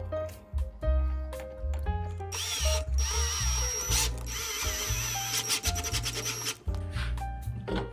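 Small pen-style electric screwdriver whirring as it drives a screw into a plastic holder. It starts about two seconds in and runs for about four seconds with a wavering whine. Background music plays under it.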